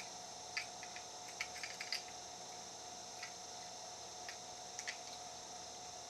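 Faint, scattered metallic clicks of a spring-steel shim being worked into the shackle of a steel combination padlock, mostly in a cluster in the first two seconds with a few more later, over a steady hiss.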